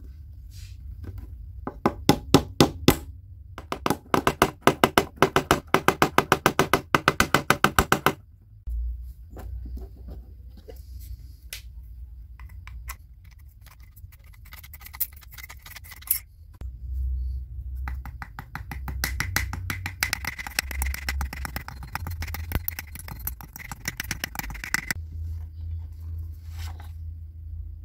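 Thin aluminium drink can being cut with scissors and worked by hand: fast runs of sharp crackling clicks. They come in two long spells with a short one between, over a steady low hum.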